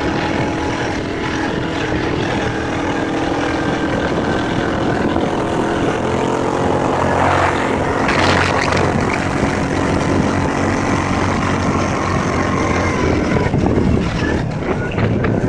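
Motorboat engine running steadily, with a brief louder rushing noise near the middle.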